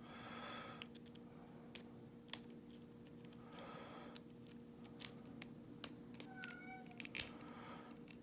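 A metal lock pick working in the keyway of a Godrej Scorpio dimple padlock under tension: about a dozen sharp, irregular metal clicks, the loudest about two seconds in.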